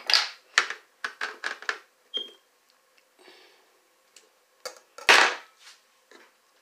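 Kitchen knife cutting watermelon into cubes on a plate: a quick run of short cutting strokes in the first two seconds, then a single louder stroke about five seconds in.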